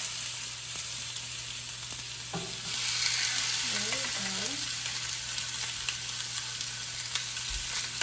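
Porterhouse steaks sizzling on a very hot cast iron grill pan, a steady hiss that grows a little louder about three seconds in.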